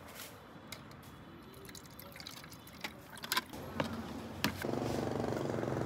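Coconut water poured from a plastic jug into a glass of ice, with a few sharp clinks of ice against the glass. A steady low hum comes in near the end.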